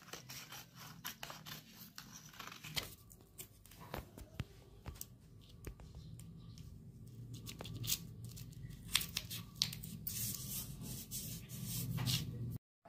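Scissors snipping through paper in a quiet run of short, crisp cuts, with paper rustling as the cut-out pieces are handled.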